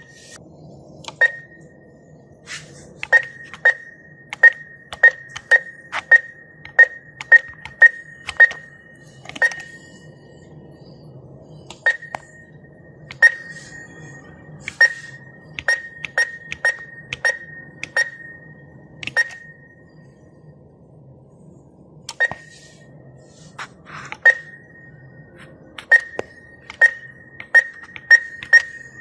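ATM keypad buttons being pressed, each press a click followed by a short beep of the same pitch. The presses come in three runs of about ten to twelve, with pauses of a few seconds between runs, as when entering a PIN and choosing an amount.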